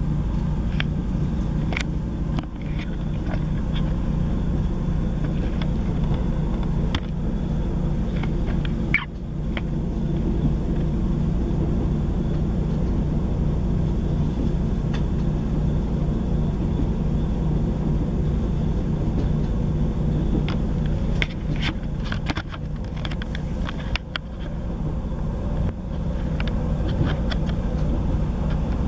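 Transport for Wales Class 158 diesel multiple unit heard from inside the carriage while under way: the steady rumble and drone of its underfloor diesel engine and wheels on the rails, with short clicks and knocks here and there.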